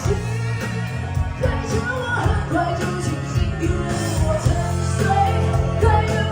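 Live rock band music: a melody line winds over steady bass and drums.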